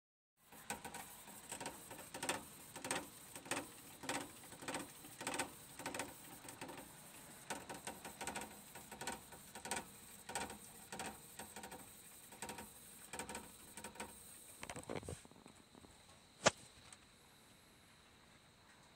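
A golden hamster running in its cage and tube setup, making a regular clatter of light knocks about one and a half times a second. The clatter fades out after about fifteen seconds, and a single sharp click follows a second later.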